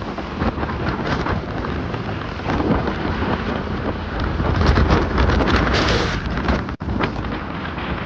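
Wind rushing and buffeting the microphone of a moving motorcycle, loudest about five seconds in, with a split-second break in the sound near the end.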